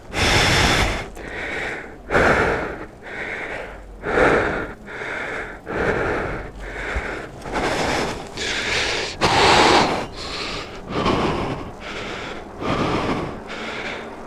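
A person panting hard, with loud, heavy breaths about once a second, from the exertion of pedaling a heavy e-bike uphill without motor help.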